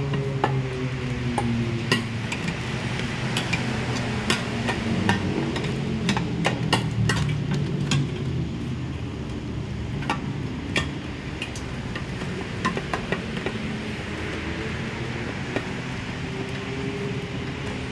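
Scattered metallic clinks and knocks of hand tools and parts being worked on a scooter during fitting of a 7.2-litre fuel tank, over a low background hum.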